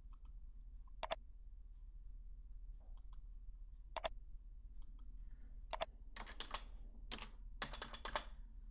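Computer mouse clicks, each a quick double snap, three times a couple of seconds apart. Then, in the last two and a half seconds, a faster run of clicks and keyboard taps while a form field is filled in.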